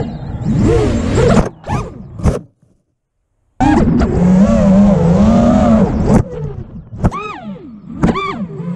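FPV quadcopter's brushless motors whining over rushing wind, the pitch rising and falling with the throttle. The whine stops sharply about a second and a half in and falls silent for about a second. It returns loud, cuts off again about six seconds in, and is followed by two short throttle blips.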